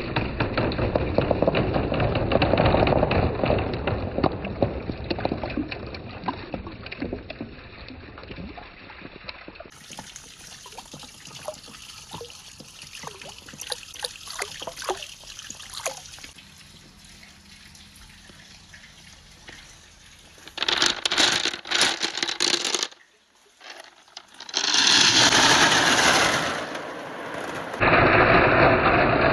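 Water rushing through a marble run of PVC pipes and rain gutters, with marbles clicking and rattling along the track. The sound changes abruptly several times, with a quieter stretch of scattered clicks in the middle and loud rushing water near the end.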